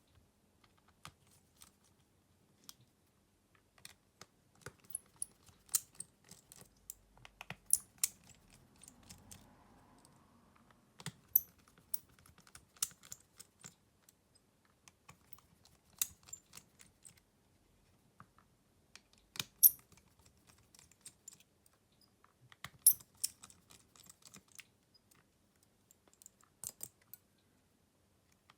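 Irregular sharp clicks and taps of small tools and plastic parts on a Xiaomi Redmi A2 smartphone being taken apart by hand, with a few louder clicks among them.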